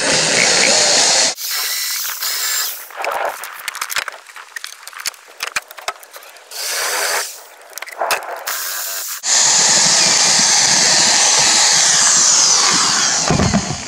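Power drill with a spade bit boring a finger hole through a wooden deck board, running in several bursts. The longest run comes in the last few seconds and winds down in pitch as it stops.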